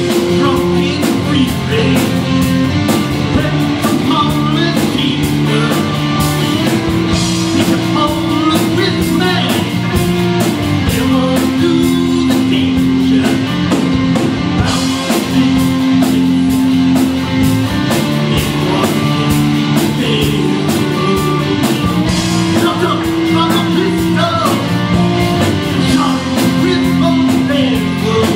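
Live rock band playing amplified electric guitar, electric bass and drum kit. Long sustained guitar notes ring over a steady drum beat.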